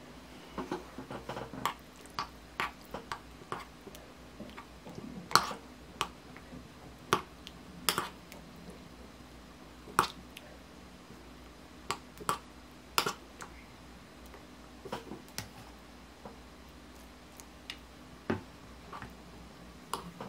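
Metal spoon stirring oat porridge in a ceramic bowl, clinking against the bowl in irregular sharp clicks, a few of them louder knocks.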